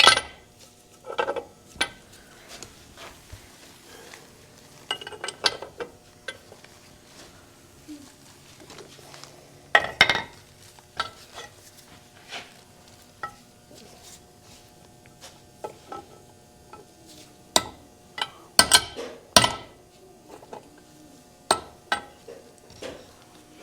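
Irregular metal clinks and knocks of tools and steel parts being handled while a tractor's PTO assembly is taken apart, with a quick run of sharper knocks about three quarters of the way through.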